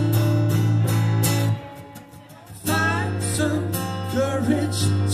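Live acoustic guitars strumming the opening of a song, dropping back briefly about a second and a half in, then the band coming back in full with a singing voice.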